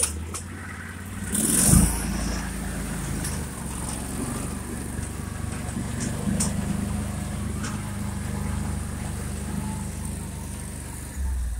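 Argo Frontier 6x6 amphibious ATV engine running steadily under load as the machine climbs a steep grassy slope. A loud rush and thump about a second and a half in is the loudest moment.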